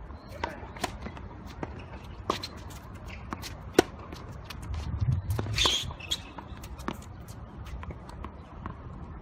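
Tennis rally: sharp racket strikes and ball bounces at irregular spacing, the loudest crack about four seconds in, with shoes scuffing on the court, including a longer scuff around five to six seconds.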